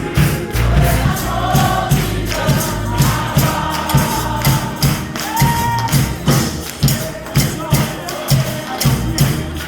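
Gospel spiritual in Gullah style: a congregation singing together over a tambourine and percussion keeping a steady beat of about two strokes a second.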